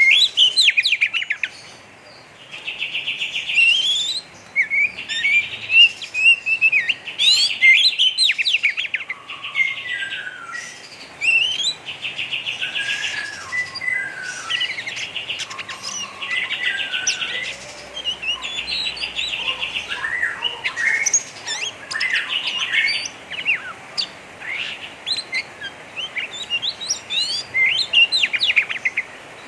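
Oriental magpie-robin (kacer) singing. Rough, fast rattling 'ngeriwik' trills of about a second each come over and over, between quick whistled and up-slurred notes.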